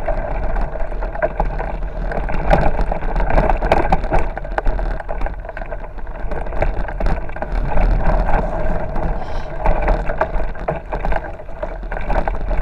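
Bicycle riding over a rough dirt track: a continuous rumble of tyres on dirt and gravel, with many small rattles and knocks as the bumps jolt the bike and camera.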